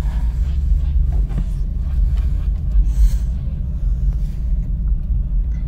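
Steady low rumble of a car heard from inside the cabin as it drives slowly.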